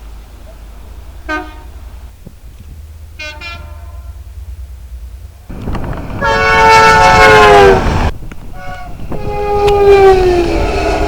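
Train horns: two short toots, then a train passes with loud running noise while its horn sounds a long chord that drops in pitch as it goes by, followed by a second long blast that also falls in pitch.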